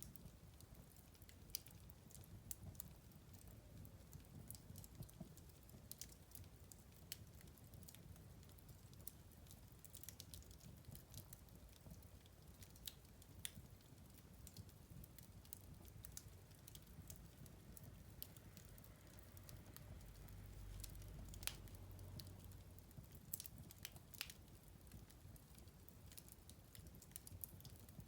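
Wood fire crackling quietly: frequent irregular sharp pops and snaps over a soft low rumble of the flames, which swells a little for a couple of seconds about two-thirds of the way through.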